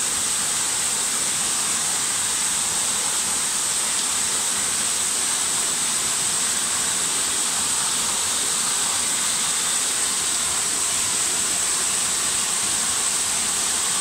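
A small waterfall pouring down stepped rock ledges: a steady, hissy rush of falling and splashing water.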